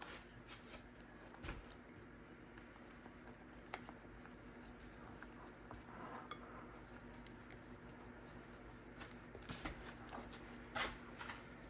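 Faint, scattered clinks of a utensil against a mixing bowl as pancake batter is stirred, coming closer together near the end, over a faint steady low hum.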